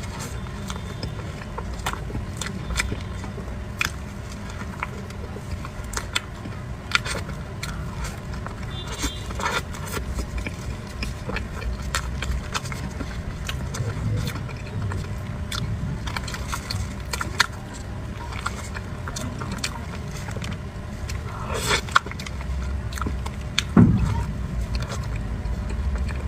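A person eating cream desserts close to the microphone: biting and chewing soft cream puffs and cream rolls, with many short clicks and smacks, over a low steady background rumble.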